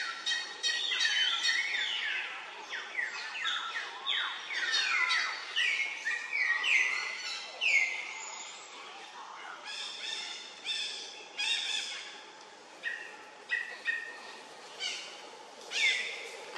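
Many high chirping calls, each sweeping down in pitch. They overlap densely for the first half, then come more sparsely as single calls, one loud one near the end.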